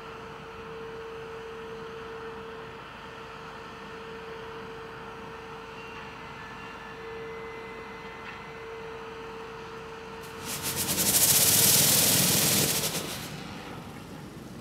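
Sapporo streetcar sasara snow-sweeper car Yuki 23 running slowly with a steady hum. About ten seconds in comes a loud crackling burst of about three seconds: electric arcing flaring from the car as it forces its wheels through hard-packed snow on the track.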